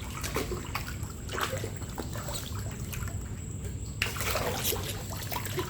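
Water trickling and splashing in small irregular bursts, busier and louder from about four seconds in.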